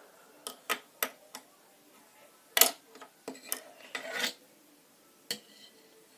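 Irregular light clicks and clacks of hard plastic knocking on a wooden tabletop as a toy robot hand grabs at a small plastic toy shark. The loudest knock comes about two and a half seconds in.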